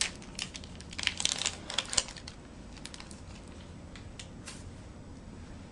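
Tuberculin syringe's wrapper crackling and crinkling as it is torn open: a quick cluster of crackles over the first two seconds, then a few isolated clicks as the syringe is handled.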